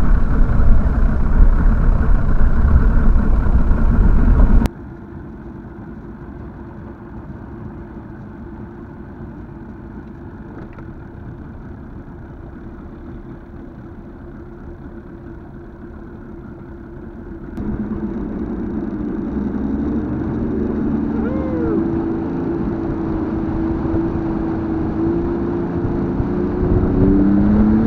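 Evinrude 150 hp two-stroke V6 outboard motor running on a bass boat, in three separate cuts. First comes a loud, low rush; about five seconds in it drops to a quieter, steady running note. Past the middle it grows louder again, its pitch climbing as the motor speeds up.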